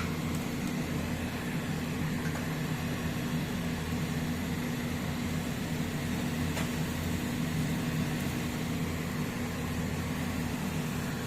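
Steady low mechanical hum, as of a fan or small motor running, with one faint click partway through.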